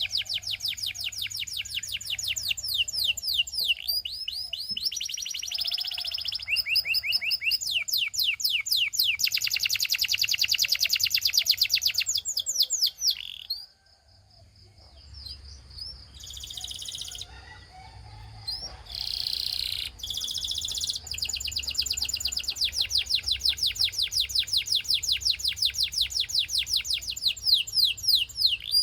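Canary singing: long, rapid trills of quickly repeated high notes, changing from one roll to the next. About halfway through the song breaks off into a few seconds of scattered short notes, then the fast trilling resumes.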